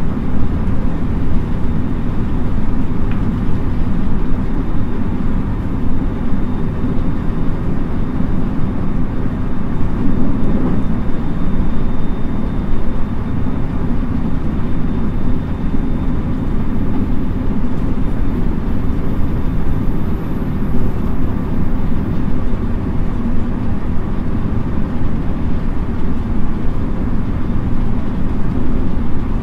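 Onboard running noise of a JR West 223 series 2000-subseries electric train motor car (Mitsubishi IGBT VVVF), travelling at a steady pace: a steady deep rumble of wheels on rail, with a faint high steady whine through the first half.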